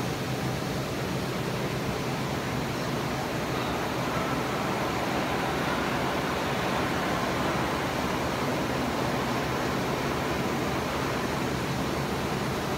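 Honeycomb paperboard lamination line running under test: a steady machine hum and hiss from its drives and conveyor belts.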